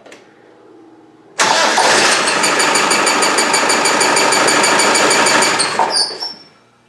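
Land Rover 300Tdi diesel engine starting about a second and a half in, running briefly with its vacuum pump removed, then shutting off near the end. A rapid, regular, sharp high-pitched chirp runs through it while it runs: still present with the vacuum pump off, its cause not found.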